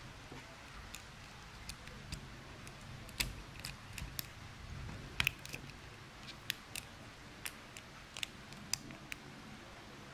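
Snowman lock pick raking and picking the wafers of a Bikemate wafer bike-lock core: irregular light metal clicks, about two a second, with a louder pair about five seconds in.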